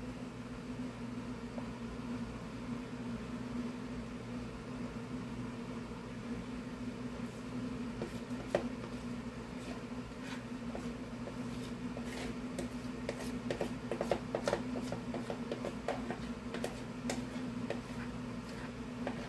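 A spoon scraping and tapping against a mixing bowl as cake batter is spooned into a pan: a string of light clicks and scrapes from about eight seconds in, thickest in the middle, over a steady low hum.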